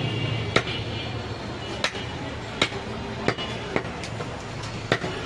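A large butcher's knife cutting goat meat on a wooden stump block, the blade knocking sharply on the wood about six times at uneven intervals, over a low steady hum.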